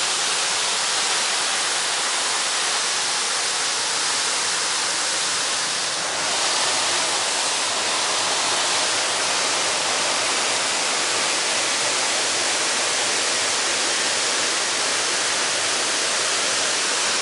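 Waterfall rushing in a steady roar of falling water.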